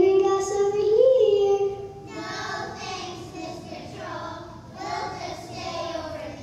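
A child's voice singing into a microphone, holding a long note that rises in pitch about a second in, then stopping about two seconds in; fainter voices follow in a large hall.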